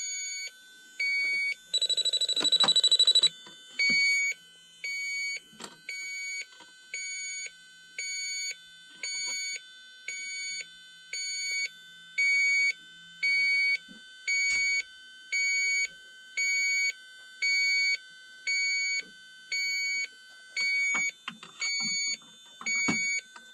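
Electronic refrigerant leak detector beeping steadily about once a second, with a louder, rapidly pulsing alarm tone about two seconds in, the kind of fast alarm such a detector gives when its probe picks up refrigerant gas. Light handling clicks and knocks between beeps.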